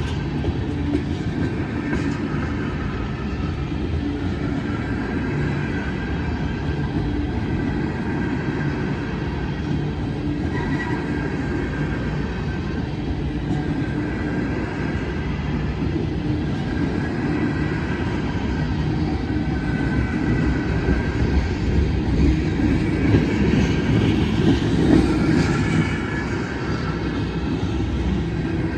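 Oil-train tank cars rolling past: a steady rumble of steel wheels on the rails with the clatter of wheel trucks, and faint high wheel squeals now and then. The sound grows louder for a few seconds past the middle, then eases back.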